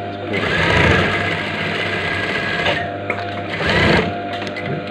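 Industrial lockstitch sewing machine stitching a welt strip onto trouser fabric for a besom pocket, in two runs: about two seconds of steady stitching, then a short burst about three and a half seconds in. Quiet background music runs underneath.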